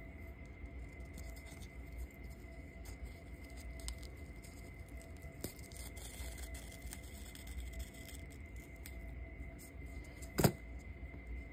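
Faint rustling and small clicks of black cord being wound onto a cardboard card, with one sharp knock about ten seconds in, over a faint steady high-pitched tone.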